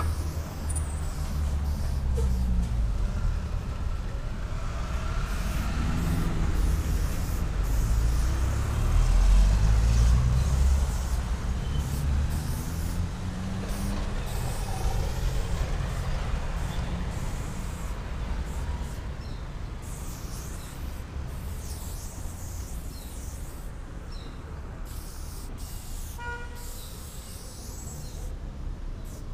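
Heavy vehicle traffic going by on the street: a large engine running, loudest about nine to ten seconds in, its pitch rising and falling as it passes, then easing off. Short hisses of an aerosol spray-paint can come and go over it.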